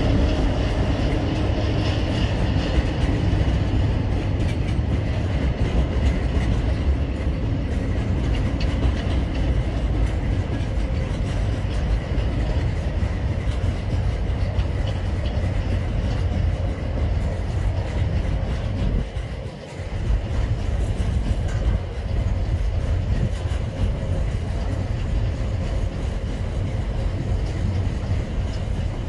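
Double-stacked container wagons of a freight train rolling steadily across a bridge: a continuous low rumble with wheel clatter. The sound dips briefly about two-thirds through.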